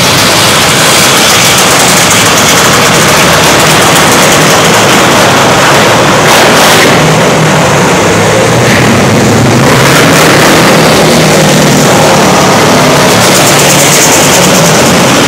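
Engines of several winged sprint karts running at race speed on a dirt oval, steady and very loud throughout.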